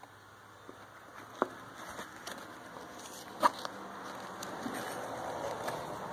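Handling noise from a nylon backpack being turned over in the hands. The fabric rustles more strongly in the second half, and there are two sharp clicks, about a second and a half and three and a half seconds in.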